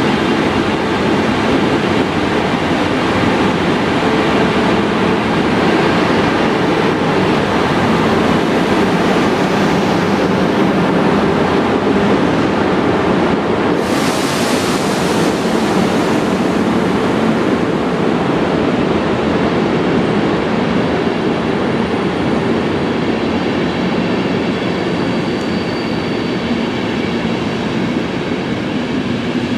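Passenger train pulling out of a station, hauled by a DB class 120 electric locomotive with a dead class 101 locomotive in tow, its locomotives and coaches rolling past with a steady loud rumble of wheels and running gear. A short hiss comes about fourteen seconds in.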